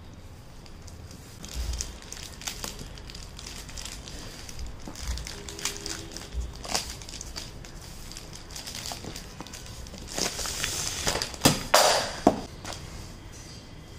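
Plastic courier mailer bag crinkling and tearing as hands rip it open and pull out a cardboard box. There is scattered crackling throughout, and a louder stretch of rustling with a few sharp snaps near the end.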